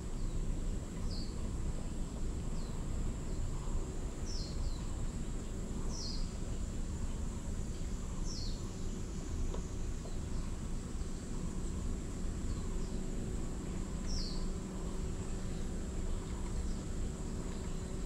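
Outdoor ambience with a steady high insect drone and short, downward-sliding bird chirps repeating every second or two, over low background noise.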